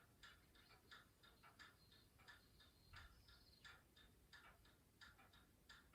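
Faint, quick ticking, about three to four clicks a second, from a replica Woolen Mills belt-driven ceiling fan turning at a barely creeping speed on its DC motor drive.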